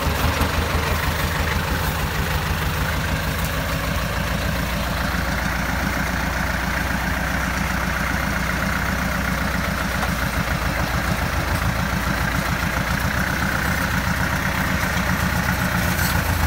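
Off-road vehicle engine running steadily at low revs, a continuous even drone with a steady hiss over it.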